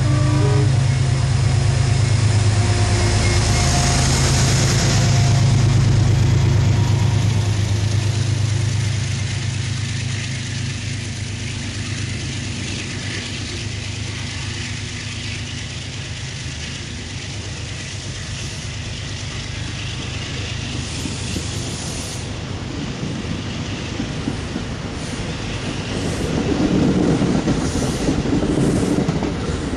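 Amtrak Acela Express train moving past along the platform: a steady low hum from the electric power car, then the passenger cars rolling by with wheels rumbling and clattering on the rails, growing louder again near the end.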